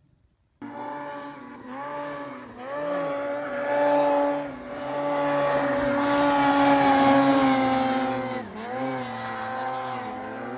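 Snowmobile engine running at high revs, starting abruptly. Its pitch dips and climbs back as the throttle is eased and reopened, a couple of seconds in and again near the end.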